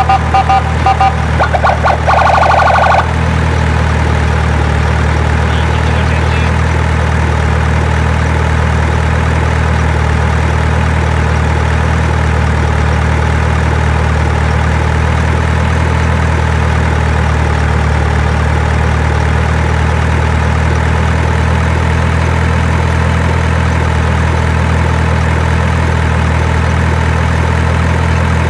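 Steady low engine idling hum. Rapid electronic beeping tones sound over it for the first three seconds, then stop abruptly.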